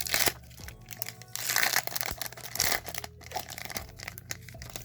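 Foil wrapper of a Pokémon TCG booster pack being torn open and crinkled by hand, in crackling bursts with the longest about a second and a half in.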